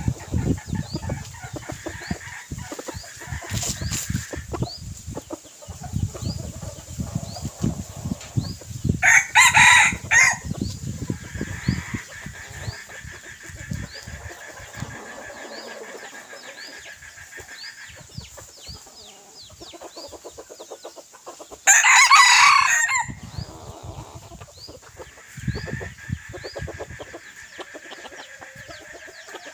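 Red junglefowl decoy roosters crowing twice, about nine seconds in and again about twenty-two seconds in, each crow a loud call of a little over a second. Softer clucking comes in between, over a steady high buzz in the background.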